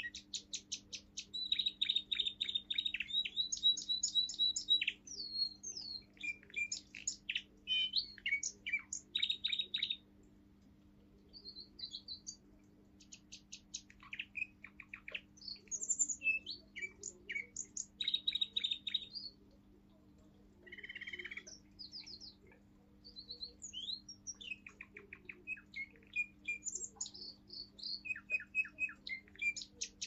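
Young male Russian song canary singing a forest-tune song: rapid trills and whistled, rising and falling phrases, with brief pauses between passages.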